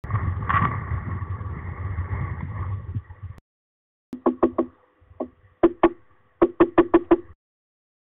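Woodpecker pecking on wood near the nest: about a dozen sharp, uneven knocks in small groups in the second half. Before the knocks there are a few seconds of low rumbling noise with one knock in it.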